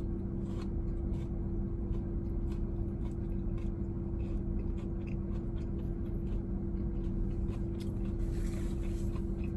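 Chewing a fried chicken sandwich layered with crunchy Cheetos, mouth closed: short soft crunches scattered over a steady hum from the car.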